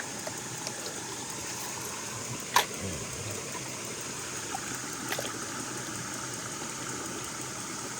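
Small stream running steadily, water trickling, with one sharp click about two and a half seconds in and a couple of fainter ticks about five seconds in.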